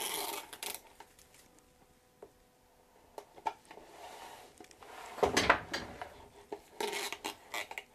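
Hands pressing a self-adhesive LED light strip along the inside of a plastic gutter while pulling off its plastic backing film: intermittent rubbing and crinkling, with a louder handling noise about five seconds in.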